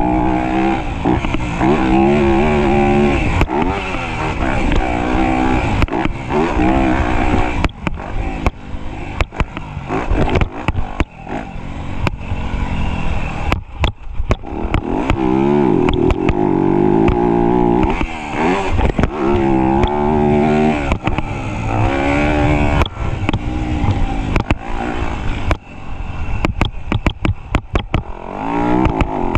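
Motocross dirt bike engine revving hard and backing off again and again, its pitch climbing and falling through the gears, with frequent short sharp knocks.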